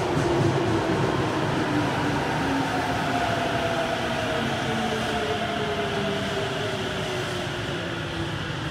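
A Tokyo Metro Hanzomon Line subway train braking into the station: a steady wheel and running rumble, with an electric motor whine that glides down in pitch as the train slows. It grows slightly quieter toward the end.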